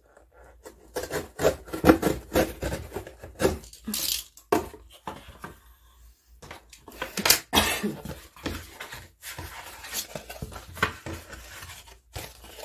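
A thin paperboard box being pulled apart at its glued seams, flattened and handled on a wooden tabletop. It makes a run of irregular crackles, knocks and scrapes, with the sharpest hits about four and seven and a half seconds in.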